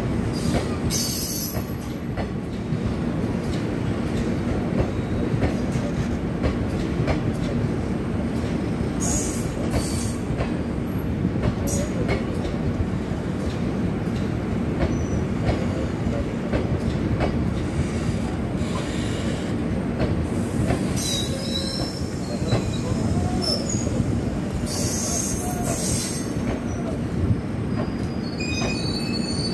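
Indian Railways passenger coaches rolling slowly past on the rails as the train pulls in to stop: a steady rumble with occasional clicks of wheels over rail joints and several short high-pitched metal squeals.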